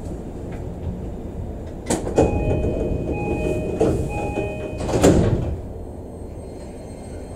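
Sliding passenger doors of an E233 series commuter train closing at a station stop. A short repeated chime sounds for a couple of seconds, and the doors shut with a loud thud about five seconds in, over the low hum of the stopped car.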